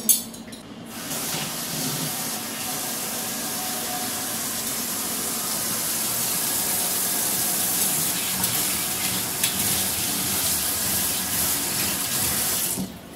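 Kitchen tap running into a stainless steel sink while utensils are rinsed under the stream, a steady rush of water that starts about a second in and is shut off near the end.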